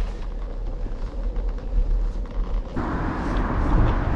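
Wind rumbling on the microphone while moving along a road, with a steady hiss that comes in suddenly about three seconds in.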